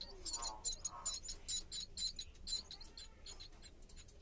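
Myna nestlings giving rapid, high-pitched begging calls, many short chirps in quick succession, the sign of hungry chicks asking to be fed. The calls thin out near the end.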